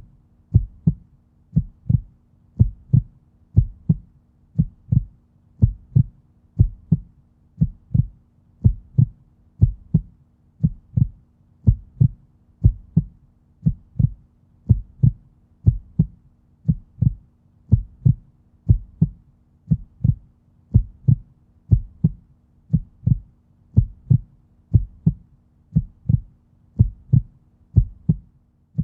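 Human heartbeat, a steady lub-dub: paired low thumps repeating about once a second, over a faint steady hum.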